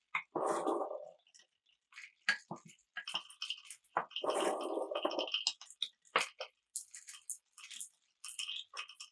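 Marbles clicking and clacking through a marble run, with many sharp knocks against the track pieces and each other. There are two short stretches of rolling, one about half a second in and one about four seconds in.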